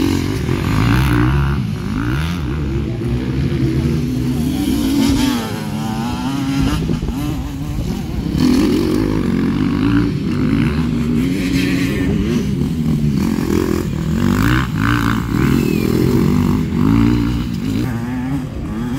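Motocross bike engines revving hard as riders race past on a dirt track, their pitch rising and falling again and again with each throttle change and gear shift.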